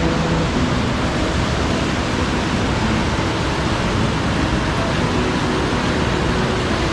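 Hareshaw Burn in flood, fast water rushing in a loud, steady, unbroken wash of noise.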